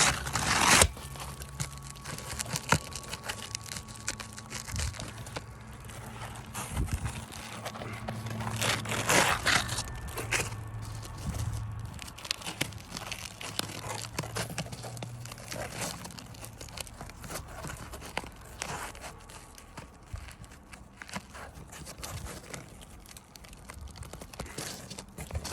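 Roof shingles being worked loose in a repairability test, with crackling, crinkling and tearing and many small clicks; the loudest tearing comes near the start and about nine seconds in. A faint low steady hum runs underneath.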